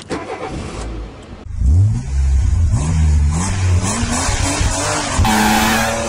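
Car engine revving up as an intro sound effect, its pitch climbing in several rising sweeps, with a burst of hiss joining about five seconds in.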